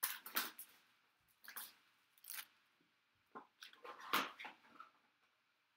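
Small cardboard collectible box being torn open by hand: a run of short tearing and crinkling rustles, loudest about four seconds in.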